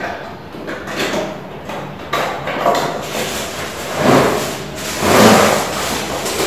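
Handling noise from unpacking: plastic packaging and parts rustling and rubbing, irregular, with louder swells about four and five seconds in.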